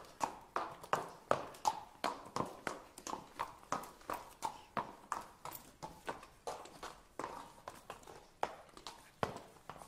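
Horse hooves clip-clopping at a walk, about three steps a second.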